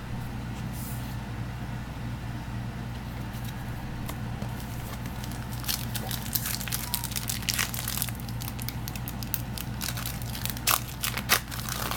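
Foil trading-card booster pack wrappers crinkling and tearing open, in quick bursts of crackles from about halfway through, over a steady low hum.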